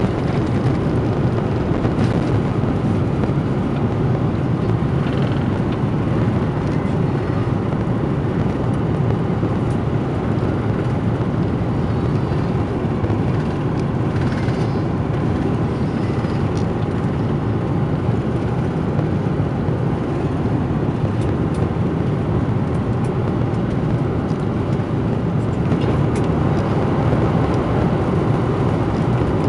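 The jet engines of an Airbus A330-200 at takeoff thrust, heard from inside the passenger cabin: a steady, loud, deep rumble with rushing air as the airliner climbs away after takeoff.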